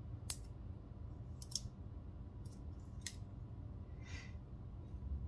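Benchmade Mini Bugout folding knife being worked open and shut, its AXIS lock clicking sharply: once about a third of a second in, a quick double click at about a second and a half, and once more near three seconds.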